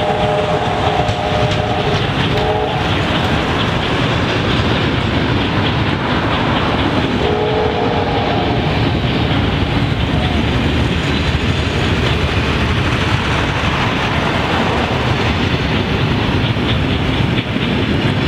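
Heritage passenger carriages rolling steadily past at speed, wheels running and clattering over the rails. A chord of several steady whistling tones sounds for the first couple of seconds and again briefly about seven seconds in.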